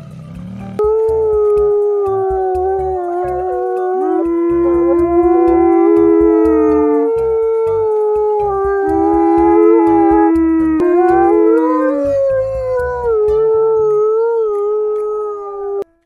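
Several canines howling together in long, overlapping, wavering calls, one voice gliding upward about eleven seconds in, over a low pulsing rumble. The howls cut off abruptly just before the end.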